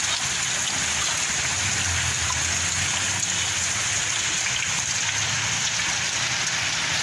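Heavy rain pouring steadily onto a flooded street, a dense, even hiss.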